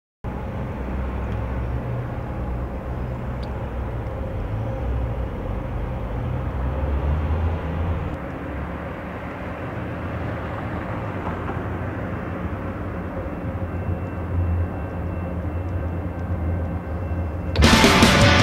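Street ambience of steady, low city traffic rumble picked up by a camera microphone. Loud rock music cuts in suddenly near the end.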